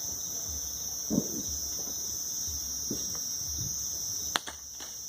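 Crickets trilling steadily in a high, continuous chorus, with a sharp click about four seconds in.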